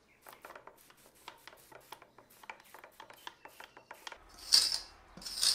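Hand spray bottle wetting a stone wall: small clicks and scrapes, then two loud hissing sprays near the end.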